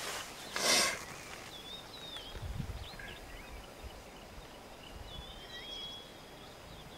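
Outdoor bush ambience with scattered faint bird chirps and short whistled notes. A short hissing burst about half a second in is the loudest sound, and a brief low rumble comes around two and a half seconds.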